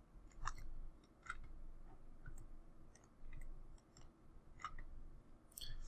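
Faint scattered clicks and ticks, about half a dozen irregularly spaced, over low room hum, with a short breathy hiss near the end.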